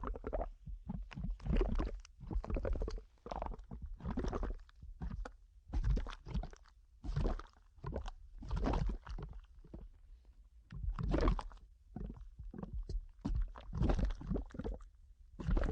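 Cartoon sound effect of wet squelching and gurgling: irregular squishy bursts, one or two a second, over a steady low rumble.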